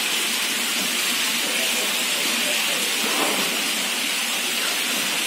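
Steady hissing noise at an even level throughout.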